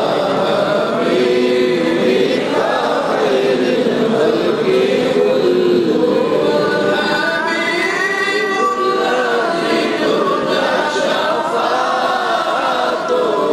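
Men chanting devotional zikr together, voices held in long melodic lines that rise and fall, amplified through a microphone and sound system.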